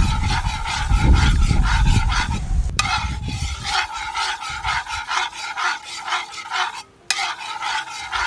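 Metal spatula scraping and stirring scrambled eggs around a metal wok, in short strokes about two to three times a second; the wok is heated only by the sun, not over a flame. A low rumble sits under the first three seconds.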